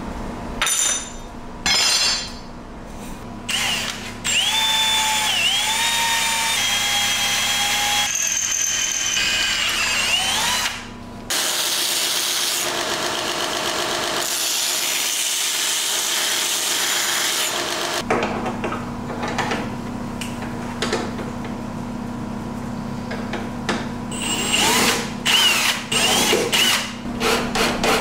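A string of shop power tools working metal: a motor running under load, its pitch dipping and recovering as it cuts, then a belt grinder sanding a part for a long stretch. Near the end, a cordless ratchet runs in quick short bursts.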